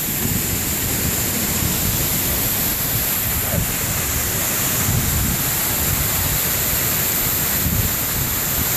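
Steady roar of rushing water from a waterfall, with wind buffeting the microphone in low gusts.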